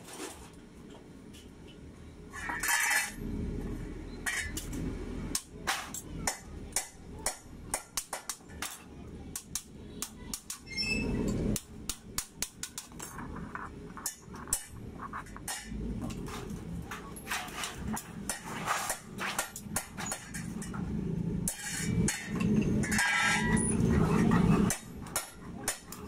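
Hammer tapping thin sheet metal shaped into a cone over a steel anvil stake: many sharp, irregular metallic strikes, with the metal rattling and clinking as it is handled.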